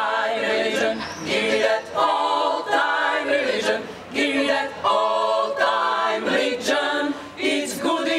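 Women's choir singing a cappella, several voices together in held phrases with short breaks between them.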